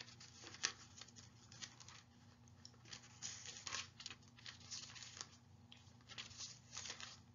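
Faint, irregular rustling and crinkling of thin Bible pages being leafed through to find a passage.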